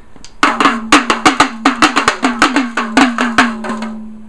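Small toy pellet drum (rattle drum) twirled by hand, its beads beating the heads in a quick, slightly uneven run of about seven strikes a second. Each strike leaves the same low ring, and the run stops shortly before the end.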